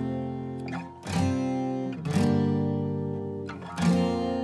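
Background music: strummed acoustic guitar chords, a new strum about once a second, each chord ringing on until the next.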